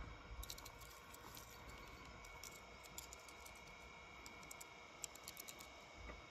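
Near silence with faint, scattered small clicks and taps from a die-cast toy car being handled and dipped into a plastic tub of thick paint, over a faint steady high tone.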